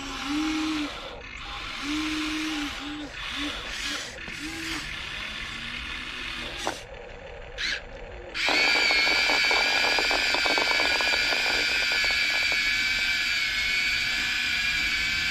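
Radio-controlled excavator's motors whining in short start-stop bursts, then running steadily and louder at a higher pitch from a little past halfway, with a rapid rattle underneath for a few seconds.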